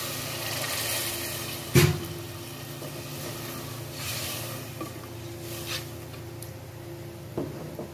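Mutton and tomatoes sizzling in a pot as they are stirred with a spoon. The spoon gives a loud knock against the pot about two seconds in, then a few lighter clicks. A steady low hum runs underneath.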